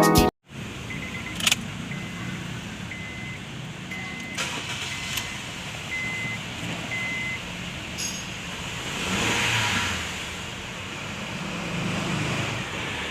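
A short electronic beep at one steady pitch, repeating about once a second seven times, over steady background noise with a few sharp clicks.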